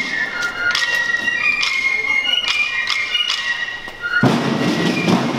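Fifes playing a march melody of held high notes over steady drum beats. About four seconds in, a loud, dense snare-drum roll starts.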